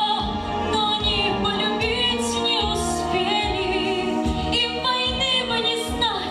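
A young female voice singing a slow, emotional song into a handheld microphone over musical accompaniment.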